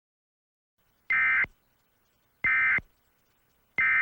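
Emergency Alert System end-of-message signal: three short bursts of SAME digital data, a buzzy two-tone warble, each about a third of a second long with about a second of silence between them, marking the end of the alert.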